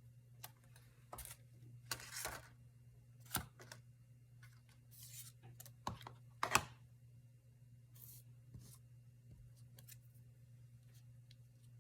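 Paper rustling and light handling clicks, a few brief scattered bursts, as loose papers are sorted through, over a faint steady low hum.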